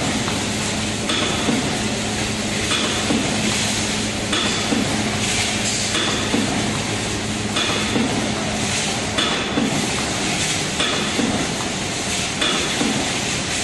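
Aluminium foil tray production press running in continuous cycles, about one stroke every second and a half. Each stroke brings a clank and a short hiss, over a steady motor hum.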